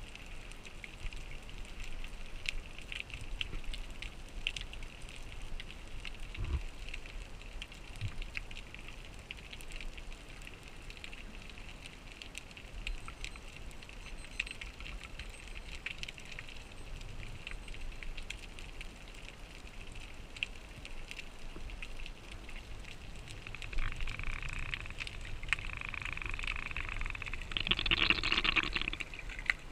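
Underwater sound through an action camera's waterproof housing: a steady faint hiss with scattered small crackling clicks. From about four-fifths of the way through it grows louder, with a rush of bubbles as the freediver swims up toward the surface.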